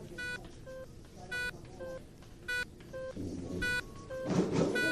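Hospital patient monitor beeping: a short, bright electronic beep about every second, with softer, lower-pitched beeps between them. A louder stretch of background noise rises near the end.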